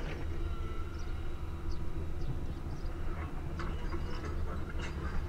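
Low, steady rumble of a Boeing 737 airliner's jet engines passing overhead on approach, with short bird chirps scattered over it.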